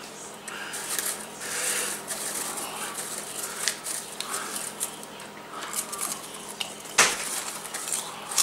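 Popcorn rustling and clicking in a plastic bowl as a hand digs through it, with scattered small crackles of handling and chewing; one sharper click about seven seconds in.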